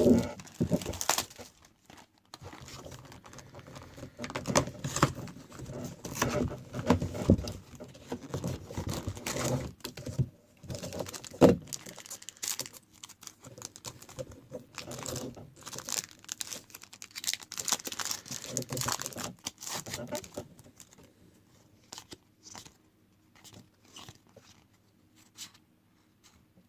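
Plastic and paper packaging of a trading card box crinkling and tearing in irregular rustles and rips as it is unwrapped and opened, thinning to a few light handling clicks near the end.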